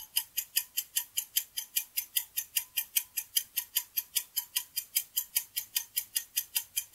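Clock-ticking sound effect counting down a quiz answer timer: short, even ticks at about four a second.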